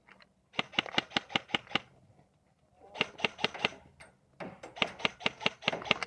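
Airsoft guns firing in three bursts of rapid sharp shots, several a second; the last burst is the longest.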